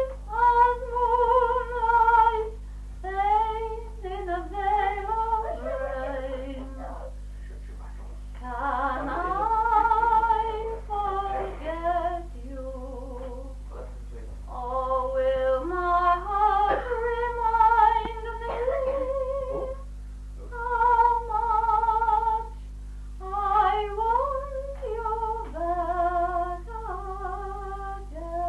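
A woman singing solo with a wide vibrato, in held notes and short phrases with brief pauses between them, on a 1963 home recording with a steady low hum under it.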